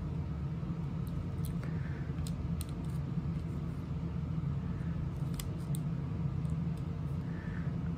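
Scattered light clicks and taps of a diamond-painting pen picking up resin drills and pressing them onto a coaster canvas, over a steady low hum.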